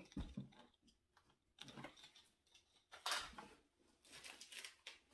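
Faint handling noises: a few brief rustles and light knocks of small items being moved and set down, the loudest about three seconds in.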